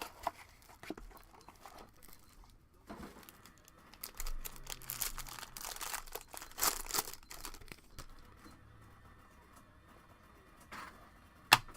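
Trading-card pack wrapper being torn open and crinkled, in irregular rustling bursts, with one sharp tap near the end.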